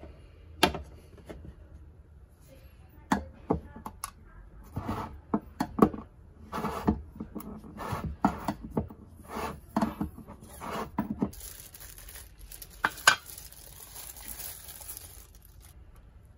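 Metal paint can handled and its lid worked open: a string of sharp clanks and taps over about eleven seconds. Then a thin plastic disposable glove crinkles for about four seconds, with one loud knock in the middle.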